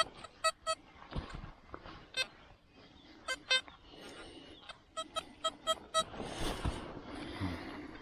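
XP Deus metal detector giving short, high electronic beeps as the coil is swept over buried metal: about ten beeps, in quick pairs and in a run of five near the middle.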